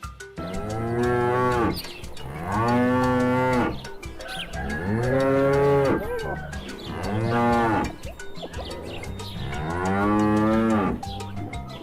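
Cow mooing: five long, drawn-out moos, each lasting one to two seconds, with short pauses between them.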